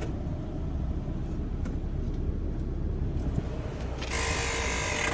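Mazda with a failed automatic transmission running in gear, giving a steady low rumble. About four seconds in, a harsh hissing rasp comes in for about a second. This is the noise the mechanic takes as the sign that the transmission is gone, after he has ruled out the CV axles.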